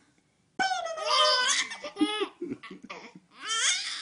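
Baby laughing in several high-pitched bursts with breathy gasps between them, about half a second in and again near the end.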